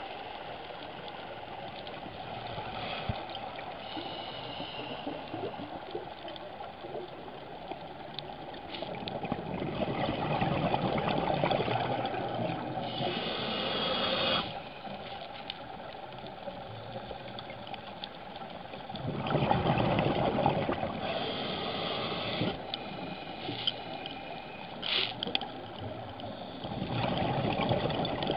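Scuba diver's breathing through a regulator, heard underwater: bubbling exhalations that swell and fade every eight seconds or so, with hiss between them.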